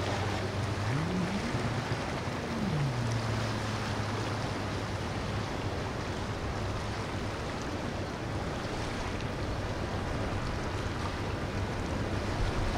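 A steady rush of water and wind, with a boat engine running beneath it whose pitch rises about a second in and drops back down a couple of seconds later.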